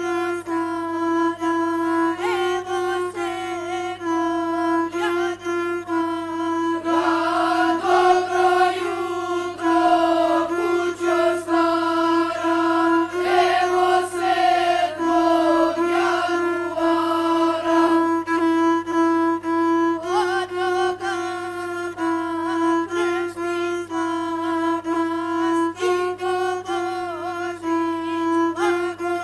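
A gusle, the single-string bowed folk fiddle, played continuously in a narrow, stepping melody. A voice sings along with it for several seconds in the middle.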